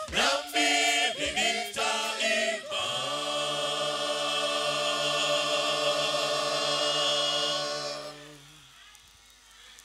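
Mixed church choir of men and women singing in harmony, closing the song on a long held chord that fades away about eight seconds in.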